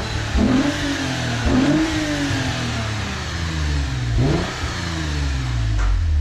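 2014 Lexus IS250's 2.5-litre V6 revved through its new Invidia exhaust and AFE intake, blipped several times with the pitch rising and falling on each rev. Husky and raspy, but not loud.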